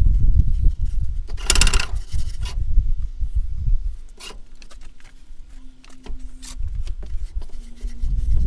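Damp foundry molding sand being rubbed by hand through the wire mesh of a wooden-framed riddle, a rasping scrape with scattered small clicks. It is louder in the first few seconds, quieter in the middle, and rises again near the end. The sand is being riddled to spread freshly added water through it while it is tempered.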